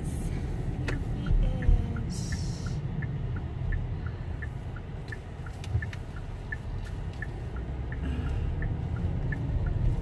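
Steady low road and engine rumble inside a car cabin, with the turn-signal indicator clicking, a tick-tock about three times a second in two alternating pitches, as the car turns. A brief hiss comes about two seconds in.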